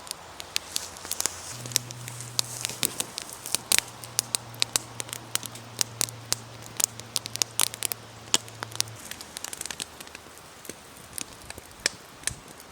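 Wood fire crackling, with sharp irregular pops and snaps throughout.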